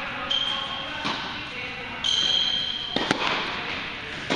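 Tennis balls struck by rackets and bouncing on an indoor hard court during a doubles rally, the hits echoing in the large hall; the sharpest hit comes about three seconds in. Two long high squeaks are heard, one near the start and a louder one about two seconds in.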